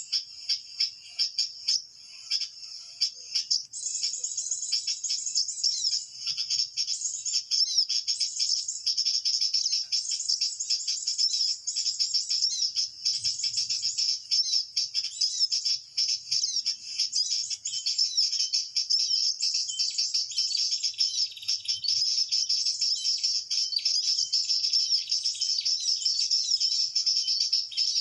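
Perenjak lumut bird calls played from a Bluetooth speaker as a trapping lure: dense, rapid, high-pitched chirping without pause.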